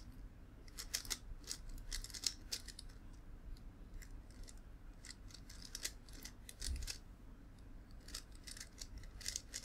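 Plastic megaminx puzzle being turned quickly by hand, its layers making a fast, irregular run of light clicks and clacks.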